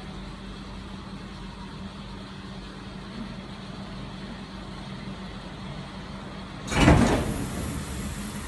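BMW 530d's straight-six diesel engine idling steadily. About two-thirds of the way in there is a sudden loud whoosh that dies away over a second or so.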